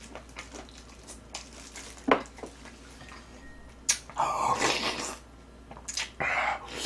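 Close-up eating sounds: light chewing clicks, then noodles slurped out of spicy jjamppong broth, a hissing slurp of about a second some four seconds in and a shorter one near the end.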